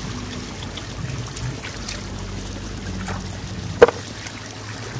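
Hands working in shallow muddy water picking up snails, over a steady low hum. One sharp knock comes about four seconds in.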